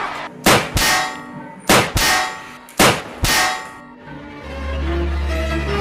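A metal pan struck three times, about a second and a quarter apart: each blow is a loud clang that rings out. Near the end a low droning music bed sets in.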